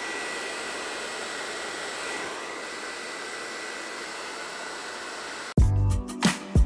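Hair dryer running steadily as it blows hot air onto the wax tops of candles to melt and smooth them: an even rushing of air with a faint steady whine. It cuts off suddenly about five and a half seconds in, and music with a heavy beat follows.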